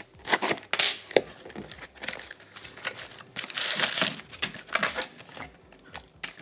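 Cardboard shipping box being opened: the packing tape is slit, then crumpled packing paper crinkles and rustles as it is pulled out of the box, loudest about three and a half to four seconds in.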